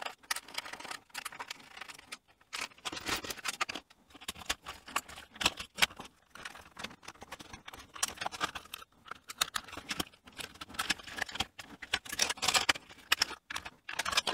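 Plastic parts of a toy radio-controlled car being pried apart and handled: irregular clicks, scrapes and rattles of hard plastic.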